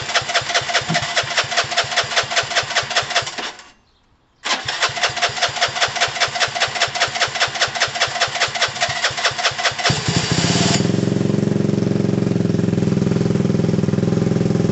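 Gilera DNA 125's single-cylinder engine being cranked on the electric starter, with rhythmic pulses of about five a second. It stops briefly, cranks again, and about ten seconds in it fires and settles into a steady run. This is a first start on a little fresh fuel of a bike that had not been running.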